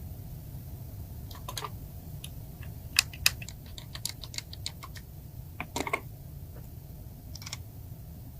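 Irregular sharp clicks and light taps of small hard parts being handled, with two louder clicks close together about three seconds in, over a steady low hum.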